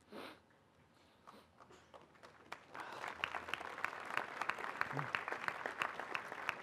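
Audience applause: a few scattered claps, then dense applause from a large crowd that swells in about three seconds in.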